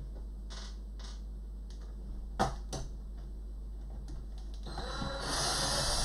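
Cordless electric screwdriver running for about a second and a half near the end, backing a case screw out, with two light clicks about halfway through.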